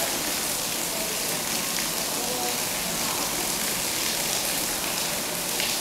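Water-bell fountain running: a clear dome of water pouring steadily over a bronze flower into a shallow pool, making an even splashing hiss.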